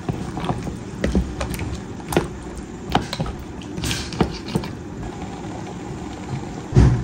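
Cookware clinking and knocking at the cooking pot: scattered sharp clicks, a dozen or so, over a steady low hum, with a louder knock near the end.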